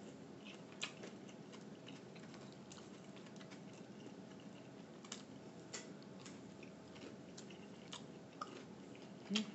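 Quiet close-up chewing of soft food (scrambled eggs and brioche French toast), with a handful of faint, scattered mouth clicks.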